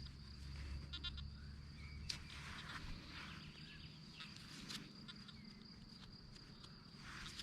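Quiet outdoor ambience with faint animal calls in the distance and a few soft clicks and scrapes from hand-digging in soil.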